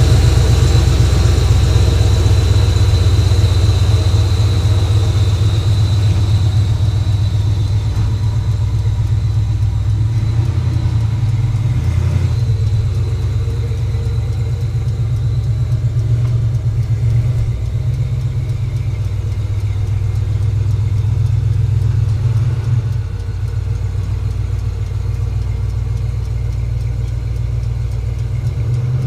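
A truck engine idling steadily close by, with a strong low hum. A thin high whine fades out over the first several seconds.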